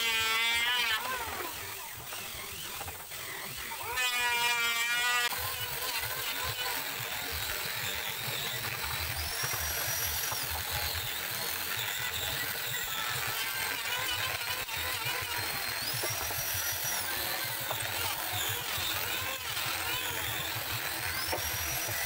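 A small electric drill runs in two short bursts near the start. From about five seconds in, an angle grinder with a sanding disc runs steadily against teak beams, its high whine rising and falling several times as the pressure on the wood changes.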